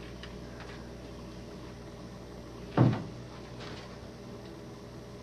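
A single dull thump, like a knock or bump on furniture, about three seconds in, over a steady low hum.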